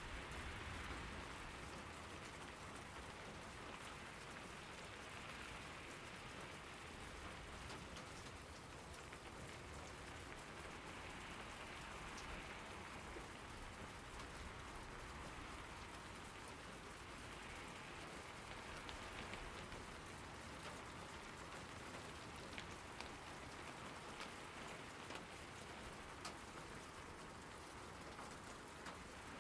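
Steady rainfall, a continuous hiss of drops on surfaces with scattered individual drops ticking; its level rises and falls gently every five or six seconds.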